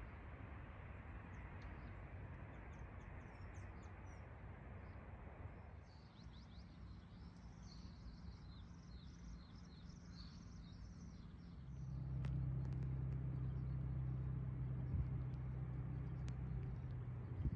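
Outdoor ambience with birds chirping: a soft rushing background, then a burst of quick high chirps from small birds for several seconds in the middle. About two-thirds of the way in, a louder steady low hum sets in, with a few sharp clicks.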